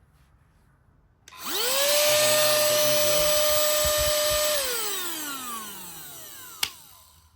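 Cordless mini handheld vacuum cleaner's small motor switched on: it whines up to a steady high pitch and runs for about three seconds. It is then switched off and winds down, the whine falling in pitch as it fades. A single click follows near the end.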